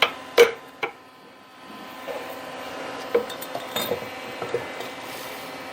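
Hand tools clinking and tapping on the metal parts of a drill press being taken apart: two sharp metallic knocks with a short ring about half a second apart, then a string of lighter clinks from about halfway through.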